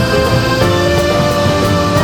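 Jazz quintet of piano, double bass, clarinet, accordion and drums playing live, with a long held melody note that slides slightly upward over the bass and drums.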